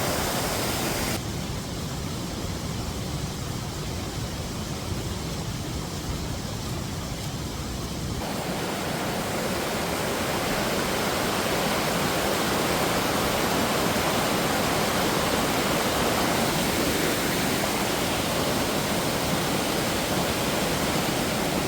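Waterfall: a steady, full rush of falling water. It sounds duller and quieter from about a second in until about eight seconds in, then returns at full strength.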